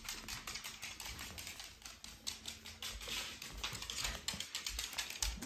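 Yorkshire terriers' claws clicking rapidly and irregularly on a hardwood floor as the dogs move about, with a few soft low thumps underneath.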